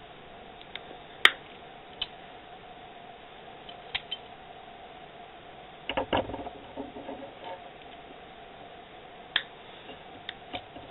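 Scattered sharp metallic clicks and ticks of pliers gripping and twisting stiff stainless steel wire by hand, the loudest about a second in and a short cluster around six seconds in, over a faint steady hum.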